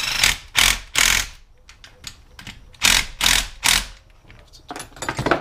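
Short bursts of metal-on-metal tool rattling on an engine case. Two quick groups of three bursts come first, then a tighter cluster near the end.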